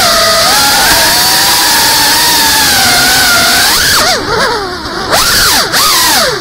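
GEPRC CineLog35 FPV drone, a ducted 3.5-inch cinewhoop, its motors and propellers whining at a steady pitch, then about four seconds in the whine falls and rises sharply several times with brief drops in loudness as the throttle is chopped and punched through manoeuvres.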